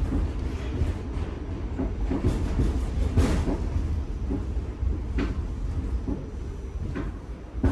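1975 Pullman Standard R46 subway car running along the track: a steady low rumble with scattered clunks and rattles from the wheels and car body.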